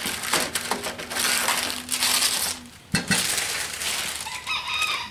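Cardboard and packing material rustling and scraping as tool cart parts are pulled from their box, with one sharp knock just before three seconds in.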